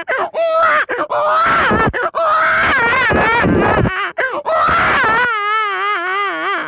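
A man's vocal imitation of a small child crying: long, high, wavering wails broken by short catches of breath, the last wail lower in pitch.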